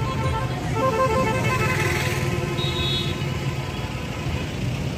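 A convoy of SUVs driving past with engines running and car horns honking in short repeated blasts, and a brief higher-pitched beep about three seconds in.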